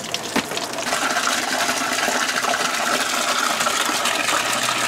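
Hose water from a reverse flush of the cooling system pouring out in a steady stream and splashing into a drain pan of old green coolant. It grows louder about a second in and cuts off suddenly near the end.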